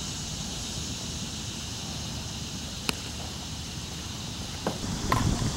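Steady wind noise on the microphone, with one sharp pop about three seconds in, which fits a softball landing in a fielder's leather glove on a catch. A few fainter knocks follow near the end.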